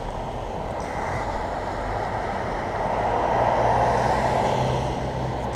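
A motor vehicle driving past: steady road and engine noise that swells to a peak about three to four seconds in, then eases, with a low steady engine hum joining about three seconds in.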